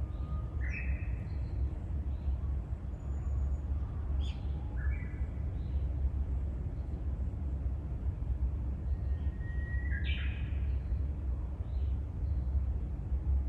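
Birds calling: a few short chirps spaced several seconds apart, the loudest near the end, over a steady low rumble.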